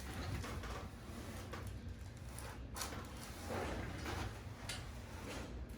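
A few short, sharp clicks and knocks with soft rustling between them, over a low steady hum.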